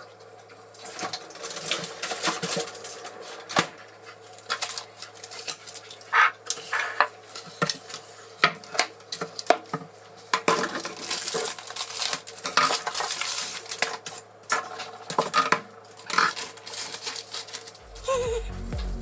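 Metal spoons clinking and scraping against each other and a dish, in many scattered knocks, with a stretch of rustling baking paper in the middle. Music comes in near the end.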